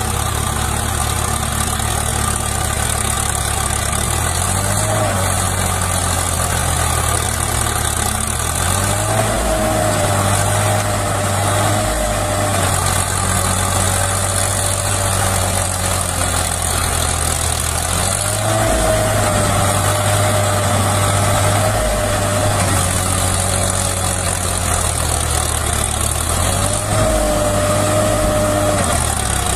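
Swaraj 744 FE 4×4 tractor's three-cylinder diesel engine working under heavy load as the tractor tries to haul a loaded trailer out of deep mud. The engine pulls harder in three long spells, each time with a whine that wavers up and down.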